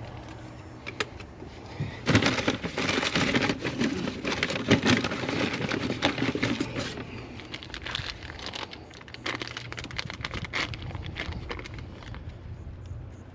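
Handling noise of gas pipe-fitting work: a dense run of clicks and scraping from about two seconds in, thinning out to scattered clicks after about seven seconds.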